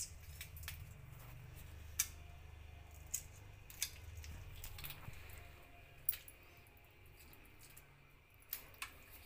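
Raw prawns being peeled by hand over a steel bowl of water: scattered sharp clicks and crackles as the shells snap off, over a faint low hum.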